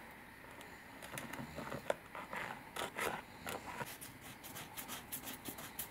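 Orange pumice hand cleaner being worked onto a plastic screwdriver handle: irregular scratching and scraping, starting about a second in and running on as the gritty cleaner is squeezed out and rubbed over the handle.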